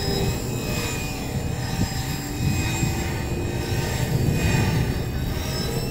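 Electric 500-size RC helicopter with a new 1600 KV brushless motor hovering: a steady motor whine and rotor whirr, its pitch rising and falling slightly.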